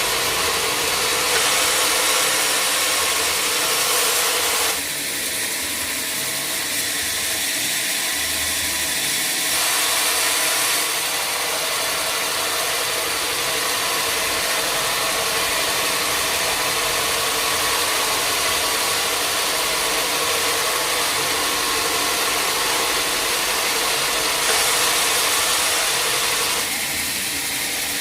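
Sawmill machinery running: a loud, continuous mechanical noise with a strong hiss, whose tone shifts about five seconds in, again around ten seconds, and near the end.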